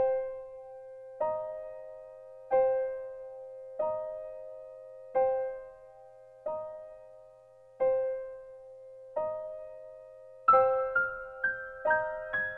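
Soft piano music: a chord struck about once every second and a half, each left to fade, before quicker notes come in near the end.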